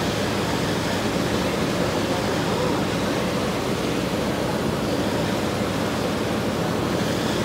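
Passenger ferry under way: a steady rush of water churning along the hull and wind, over a low, even engine drone.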